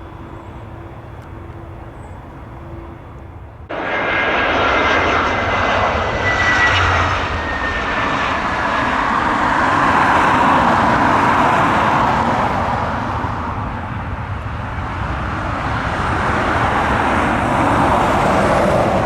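A large jet airliner passing close on approach or landing, its engines a loud, steady rush with a whine that slowly falls in pitch as it goes by. It starts abruptly about four seconds in, after a few seconds of faint airband radio hiss.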